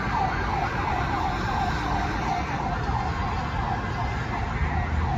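Emergency vehicle siren in fast yelp mode, its pitch sweeping rapidly about three times a second, over a low rumble of city traffic.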